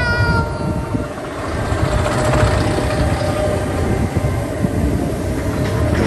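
Steady low rumbling of a moving vehicle, with a brief high tone at the start and a steady hum from about two seconds in.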